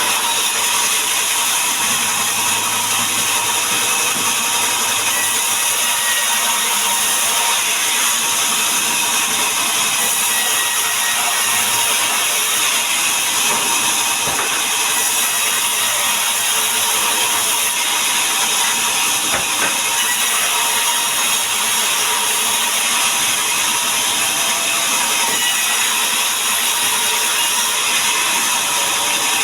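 Power saw running steadily, a loud even whine and hiss with no pauses, in the course of sawing timber into boards.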